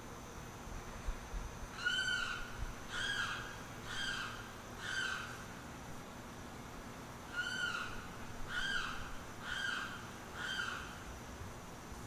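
Limpkin calling loudly: two bouts of four cries, each about half a second long and arching up then down in pitch, roughly a second apart.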